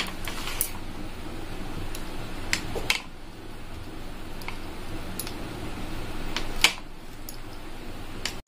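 A metal wheel cutter scores a sheet of soft sweet dough in a plastic tray, with scattered sharp clicks and taps as the cutter meets the tray. The loudest click comes near the end. A steady fan-like hum runs underneath.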